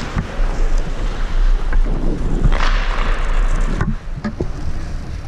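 Hockey skate blades gliding and scraping on the ice, with wind rushing over a helmet-mounted camera microphone. A louder, longer scrape builds about two and a half seconds in and cuts off abruptly just before four seconds.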